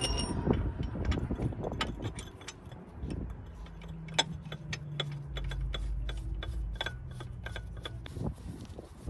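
Ratchet wrench clicking in short irregular runs while the oil filter housing cap on a BMW E34's inline-six is tightened down. A low steady drone sits under the clicks through the middle.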